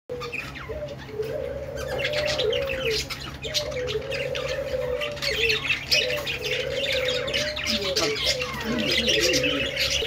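A cage of budgerigars chattering and chirping, with dense rapid chirps that thicken about two seconds in. Under them runs a lower wavering tone that breaks off and resumes every second or two, and a steady low hum.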